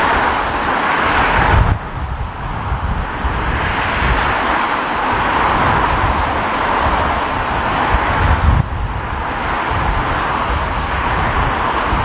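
Storm-force wind buffeting the microphone: a low, gusty rumble under a steady rushing roar that swells and eases, dipping sharply about two seconds in and again near nine seconds.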